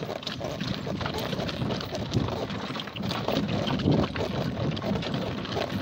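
Donkey cart rolling over a stony dirt road: the donkey's hooves clopping and the cart rattling and knocking in an uneven stream.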